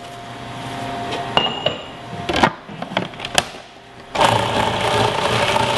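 A few sharp clicks and knocks from the food processor being handled. About four seconds in, its motor starts and runs steadily, chopping basil with walnuts and garlic into pesto.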